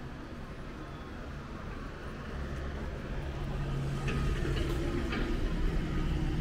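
Low engine rumble of a passing road vehicle over city street noise, growing louder about halfway through.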